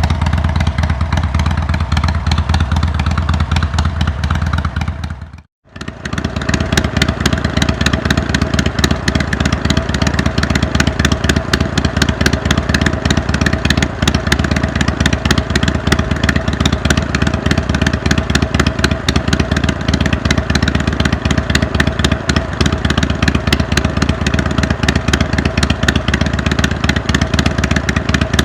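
Harley-Davidson Iron 883's air-cooled V-twin running steadily through a Jekill & Hyde valve-flap exhaust, with a fast, even exhaust pulse. The sound cuts out for a moment about five and a half seconds in, then carries on with less bass.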